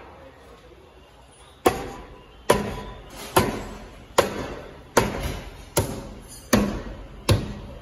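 Eight sharp, evenly spaced blows struck against a car wheel and tyre, a bit under a second apart, each with a short ringing tail: the wheel being knocked to free it from the hub.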